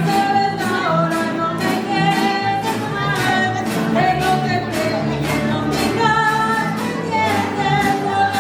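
Mariachi music: a voice singing held notes over a steady strummed beat.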